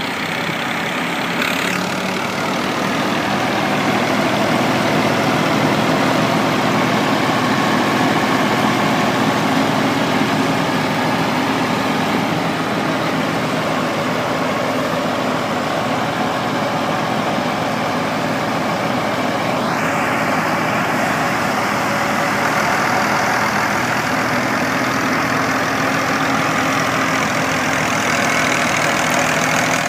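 Al Ghazi tractor's diesel engine running steadily, driving a tractor-attachment wheat thresher as wheat sheaves are fed in, the thresher adding a dense steady rushing noise over the engine.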